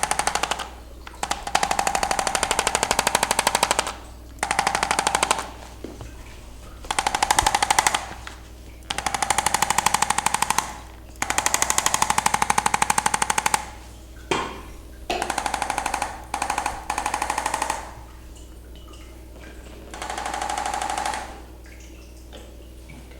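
Handheld electric percussion massager running in repeated bursts, a rapid even pulsing over a steady motor whine. It stops and starts about nine times, each burst a second or two long.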